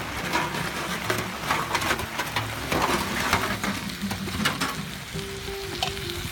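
Irregular crackling, sizzling noise over quiet background music.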